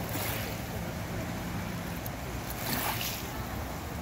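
Wind rumbling on the microphone over river water lapping at the bank, with brief louder gusts just after the start and again a little before three seconds in.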